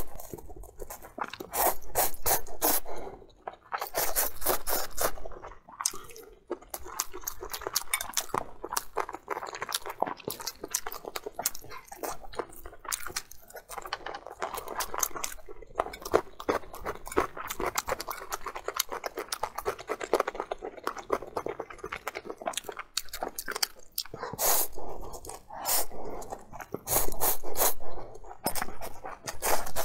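Close-miked eating: slurping of saucy fried noodles in loud bursts of a second or two, near the start and again near the end, with wet chewing between.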